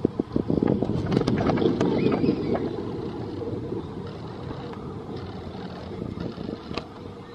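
Steel kiddie roller coaster train rolling past on its tubular track: a rumble of wheels on rail with rattling clicks, loudest a second or two in and fading as the train moves away.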